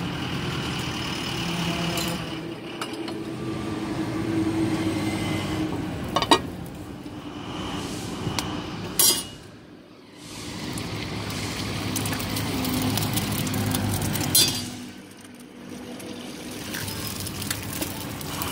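Eggs tapped and cracked on a steel griddle, giving a few sharp clinks a few seconds apart, over steady street traffic noise.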